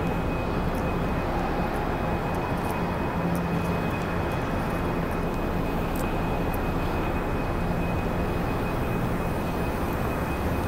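Steady factory floor machinery noise: a continuous rushing hum with a low drone underneath and a faint, constant high whine.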